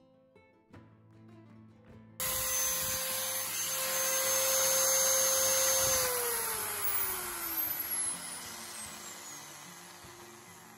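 Bosch 1124.0 two-speed electric drill's 420 W motor switched on about two seconds in, running at a steady speed with a whine. About four seconds later it is released, and its pitch falls steadily as the motor winds down to a stop.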